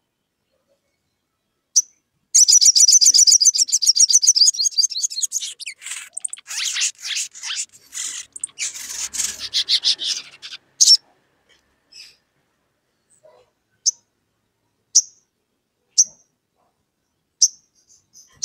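A caged sunbird calling. After a single high chip it gives a loud, very high, fast trill for about three seconds, then several seconds of scratchy chattering, and then single sharp chips about once a second.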